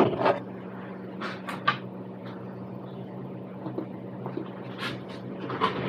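Steady low electrical hum of computer equipment, with scattered light clicks and taps as things are handled at the desk.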